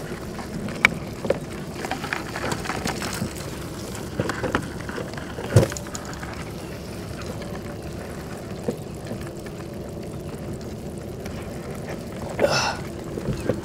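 Small trickling water sounds and handling knocks on a plastic kayak hull as a weakfish wedged beside the seat is worked free by hand, with one sharp knock about five and a half seconds in.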